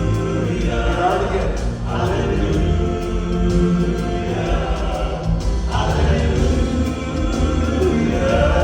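Southern gospel male vocal quartet singing long, held "Hallelujah" chords in close harmony over instrumental backing with a steady bass.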